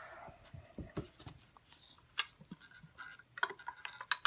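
Handling noises of a plastic LED uplight and its power cable: scattered clicks and rubbing, with a quick run of sharper clicks near the end as the cable plug and the light's open hatch are handled.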